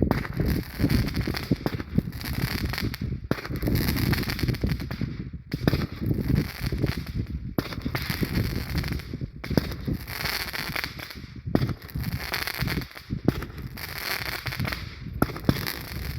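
12-shot rider firework cake firing shot after shot: each shot a dense crackling burst lasting about two seconds, with short breaks between them.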